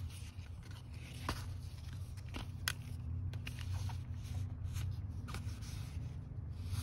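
Handling noise from a pair of black plastic sunglasses being turned over and set down on trouser fabric: scattered sharp clicks and short rustles, over a steady low hum inside the vehicle cabin.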